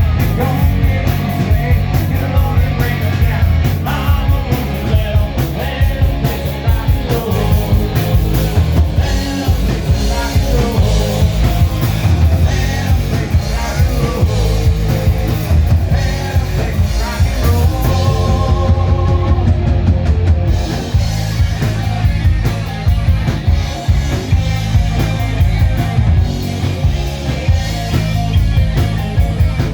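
Loud rock music with a singing voice over a steady bass.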